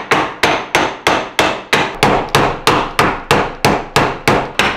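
Hammer blows on a steel hatchet head in a steady rhythm, about three a second, each with a short ring, knocking the old head off its loose wooden handle.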